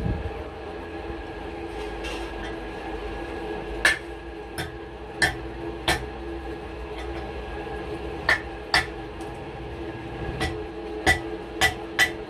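Hand hammer striking a truck brake shoe to rivet on its new brake lining: about nine sharp metallic blows at an uneven pace, some in quick pairs, over a steady mechanical hum.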